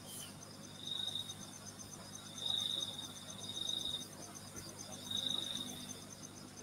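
Insects trilling in repeated high bouts of one to two seconds, with a faster, even pulsing chirp above them. A faint steady low hum runs underneath.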